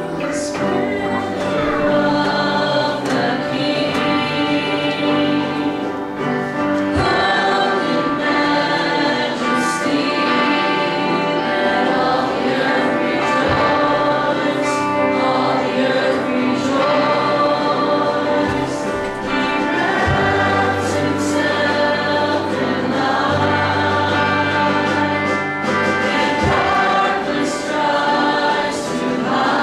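Church worship band playing and singing an invitation hymn, with several singers over guitars and a steady beat.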